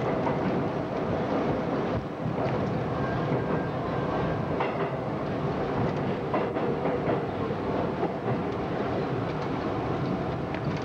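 R32 subway car running through a station, heard from inside the lead car: a steady rumble and rattle with scattered clicks from the wheels over the rail joints.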